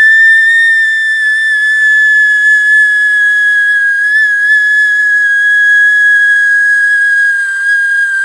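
A person making a loud, high-pitched, whistle-like noise, held as one steady note that barely wavers.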